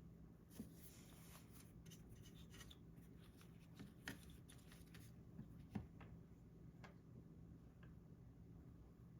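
Faint handling of small keyboard parts: light rubbing and rustling, then a few scattered sharp plastic clicks, the loudest about four and six seconds in.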